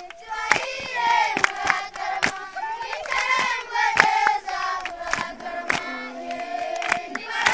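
Group of children singing a Rwandan traditional dance song together, with sharp hand claps keeping a steady beat about twice a second.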